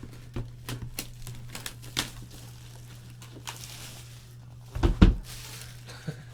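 Trading-card packaging being handled: crinkling with light clicks and ticks, a dull thump about five seconds in, over a steady low hum.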